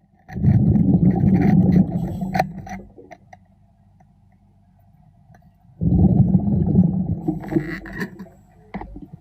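Scuba diver's breathing heard underwater: two long bubbling bursts of exhaled air from the regulator, a few seconds apart, with a quiet gap between breaths.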